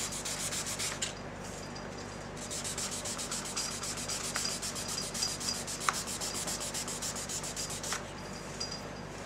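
1000-grit sandpaper rubbed by hand on a motorcycle fender's clear coat in quick back-and-forth strokes, levelling out a deep scratch. The strokes stop for about a second near the start and ease off near the end.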